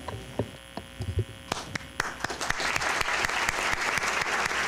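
Audience and panel applauding at the end of a speech. It starts sparse, with a few scattered claps, and fills in to steady applause about two seconds in.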